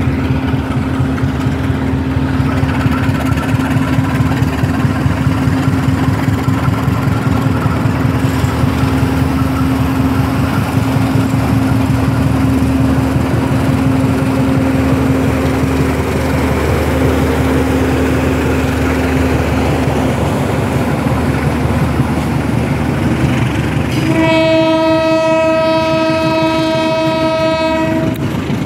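Standing diesel passenger train, its engines running in a steady hum. About 24 seconds in, the locomotive's horn sounds one long blast of about four seconds, the signal that the train is ready to depart.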